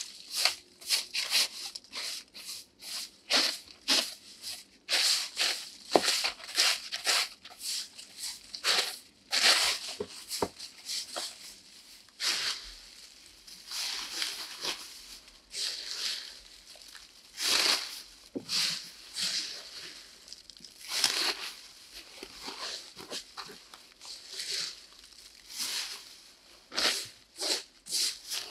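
Twig broom sweeping dry leaves across wooden steps in quick brushing strokes. Later, dry leaves rustle and crunch as they are scooped up by hand and stuffed into a plastic bag.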